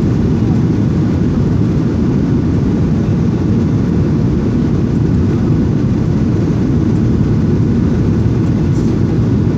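Jet airliner cabin noise heard from a window seat: a steady, low, even rush of engines and airflow during the descent to land, with no change in level.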